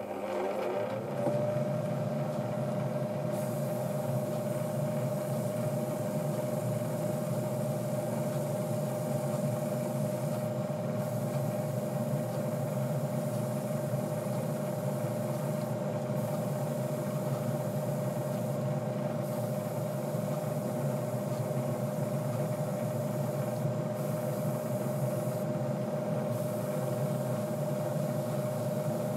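Spray booth extractor fan switching on: its motor hum climbs to a steady pitch within about a second and then runs steadily. From about three seconds in, an Iwata airbrush hisses as it sprays paint, with short breaks where the trigger is let go.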